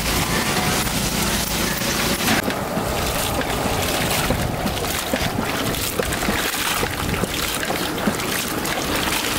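Water sloshing and splashing in a metal basin as raw prawns are washed by hand, with irregular small splashes and clinks.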